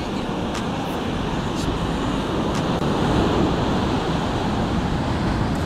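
Ocean surf washing up a sandy beach, a steady rush of breaking waves, with wind buffeting the microphone.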